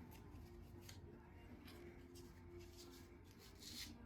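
Near silence with a few faint brushing strokes of excess wood putty filler being wiped off the shelf, the clearest near the end, over a low steady hum.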